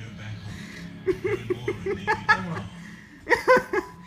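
Several people laughing in quick, rhythmic bursts, with a louder, higher burst of laughter a little after three seconds in.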